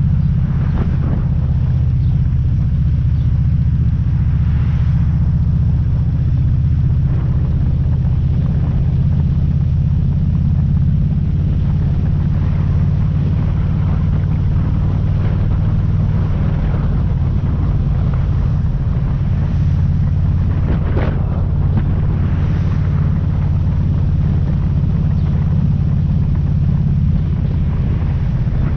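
Motorcycle engine running at a steady cruising speed, with wind rushing over the microphone.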